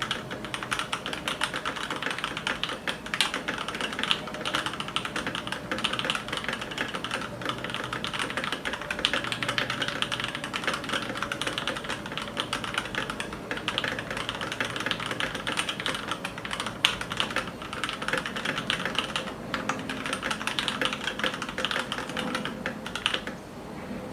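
Keychron K2 mechanical keyboard with lubed and filmed Durock T1 tactile switches and case foam, typed on fast and continuously. The keystrokes stop just before the end.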